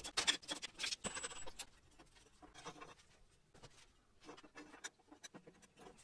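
Light metallic clicks, knocks and scrapes of a hand wrench working on a motorcycle's rear axle and wheel hub. They are busiest in the first couple of seconds, then thin out to occasional faint clicks.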